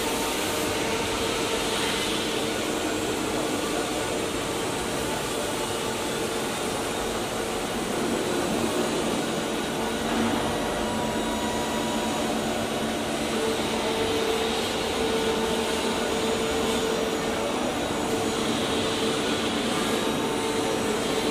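CNC router running: a steady rushing machine noise with a constant tone that grows stronger about two-thirds of the way through.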